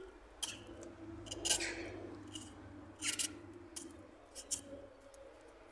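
A knife blade paring the sawn end of a linden stock: a series of short, irregular scraping strokes as thin shavings are cut off to smooth away the saw marks.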